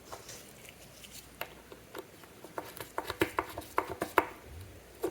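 Light clicks and taps of a small watch movement and its movement holder being handled and turned over, about a dozen in quick irregular succession, most of them in the second half.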